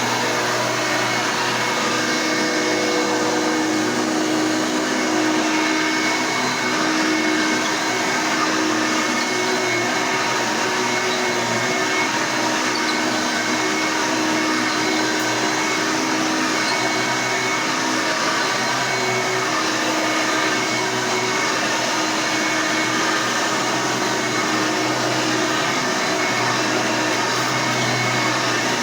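Hoover Elite U4483 upright vacuum cleaner, a 5.2 amp machine, running steadily with an even motor and fan hum.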